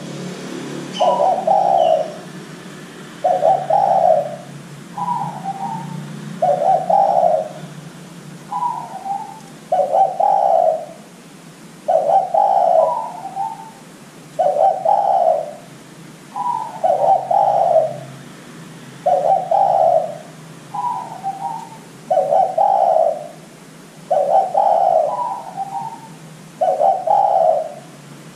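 Spotted dove cooing over and over: a run of low coos, one every second or two, some opening with a short higher note.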